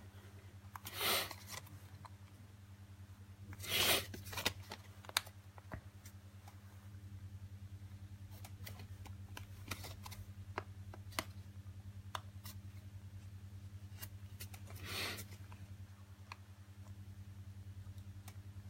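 A plastic-coated playing card is worked in under the heat-softened back glass of a Samsung Galaxy A520F to break the adhesive. There are short scraping rubs at about one, four and fifteen seconds and scattered small clicks, over a steady low hum.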